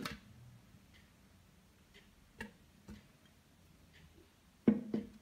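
Mango slices dropping into a plastic blender jar: a few separate soft knocks with quiet between, the loudest pair near the end.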